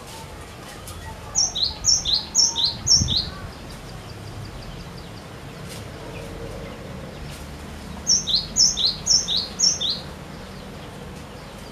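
Cinereous tit singing two phrases several seconds apart, each of four quick repeated two-note whistles, a high note dropping to a lower one.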